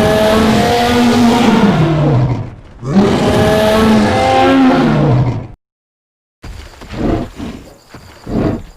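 Movie-dinosaur Tarbosaurus roaring twice: two long, loud calls of about two and a half seconds each, falling in pitch as they end. After a short silence comes a run of quieter, uneven rumbling pulses.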